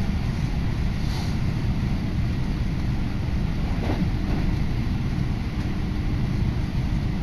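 Running noise inside a moving electric train on the Tokaido Line: a steady low rumble from wheels on rails and the car body. A faint steady tone rises out of it for a couple of seconds past the middle.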